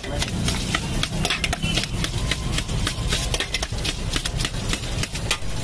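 Crunchy fried noodles and shredded cabbage being tossed by hand in a steel pot: a steady dry rustle made of many small crackles, over a low steady hum.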